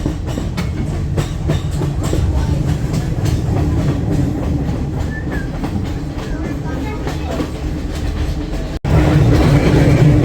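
Passenger train running: a steady low rumble with the wheels clacking over the rail joints. There is a brief break about nine seconds in, and the sound is louder after it.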